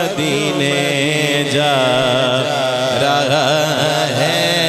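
A man sings an Urdu naat unaccompanied by words in this stretch: long, drawn-out notes that waver and bend in pitch, over a steady low drone.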